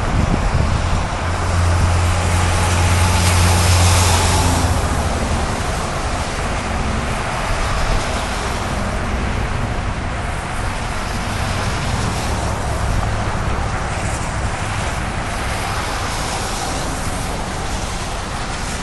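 Steady rushing noise of strong storm wind and road traffic. A vehicle's low engine drone is loudest for the first four seconds or so, then fades into the rush.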